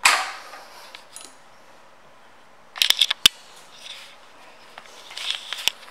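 A few sharp clicks and light rattles of hands working a motorcycle's handlebar controls, with low hiss between. There is a tight run of clicks about three seconds in, ending in one hard click, and a smaller run a little after five seconds.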